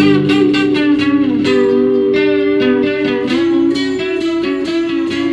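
Instrumental guitar music: repeated plucked guitar notes over long held tones, gradually getting quieter toward the end.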